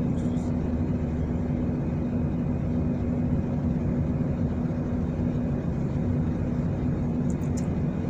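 Steady industrial machinery hum: a dense, even low rumble with one constant low tone running through it.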